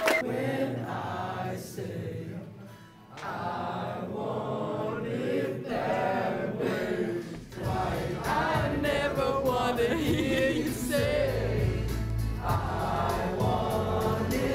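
Music with a choir singing, the sound growing fuller in the bass about halfway through.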